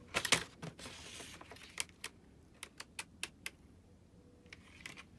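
Corrugated plastic wire loom rattling and clicking as it is pulled off its coil and handled: a burst of loud plastic clatter at the start, then scattered light clicks.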